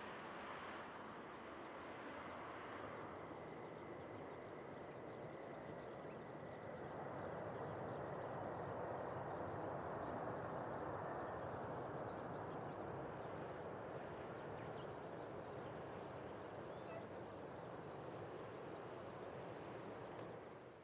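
Distant jet noise from a Boeing 747-8F's four General Electric GEnx-2B turbofans as the freighter rolls out after touchdown: a steady rumble with a faint high whine that fades out about halfway. The rumble swells for several seconds near the middle, then settles back.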